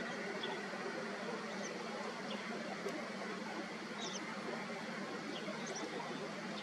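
Small birds chirping, short high calls scattered irregularly, over a steady faint background noise.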